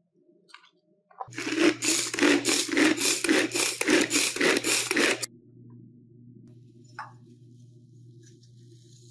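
Pull-cord manual food chopper mincing garlic: the cord is yanked again and again, about three pulls a second for some four seconds, each pull spinning the blades through the cloves with a whirring chop, then stops suddenly.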